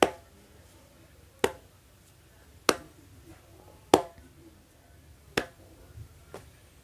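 Slow sarcastic hand clapping: five single claps, about one every one and a quarter seconds.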